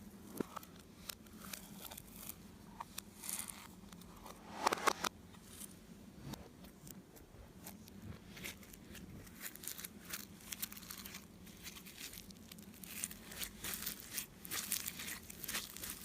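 Slime being squeezed, stretched and folded by hand, giving irregular sticky crackles and small popping clicks, with a louder squelchy burst about five seconds in and denser crackling toward the end.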